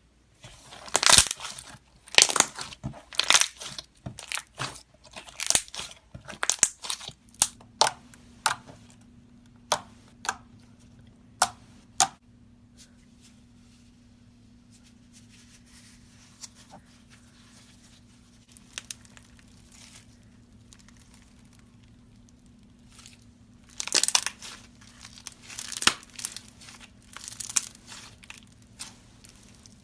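Slime being worked by hand, giving dense runs of crackling clicks and pops, then a few scattered pops, a quiet stretch, and another burst of crackling near the end.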